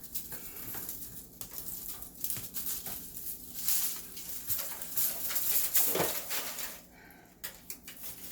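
Rustling and scraping of soil and dry potato plant matter being dug and handled in a 5-gallon bucket, with irregular crackles and scrapes that grow denser and louder in the middle.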